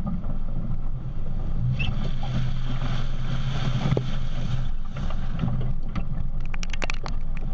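Four-wheel-drive vehicle driving off-road through mud: a steady low engine drone, with the tyre splashing through a mud puddle a few seconds in and a run of sharp clicks near the end.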